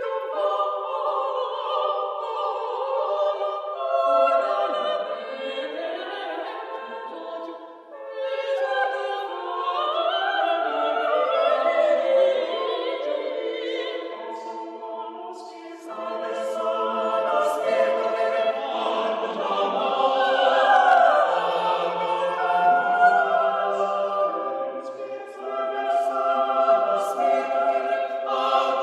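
Classical choral singing in an operatic style, several voices holding long wavering notes in phrases that break briefly about 8 and 16 seconds in.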